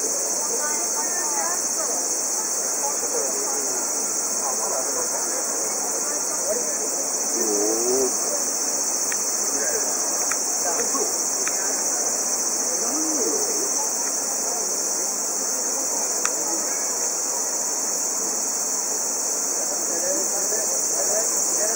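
Steady high-pitched chorus of insects shrilling without a break.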